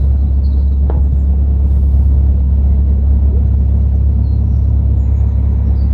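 Narrowboat engine running steadily under way, a constant low hum.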